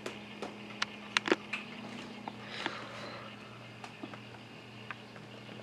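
Quiet room: a faint steady low hum with a few light clicks and ticks, the clearest a little after a second in. No modem dialing tones are heard; the modem is waiting for a dial tone that never comes.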